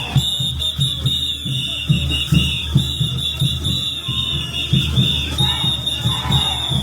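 Festival dance music: a bass drum beating steadily about twice a second under shrill whistles blown in short rhythmic pulses.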